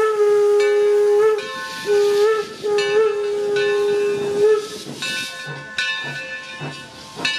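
Steam locomotive whistle blowing, a chord of several tones: a long blast ends about a second in, followed by a short blast and another long one. Then steam hissing, with a few soft low beats from the locomotive.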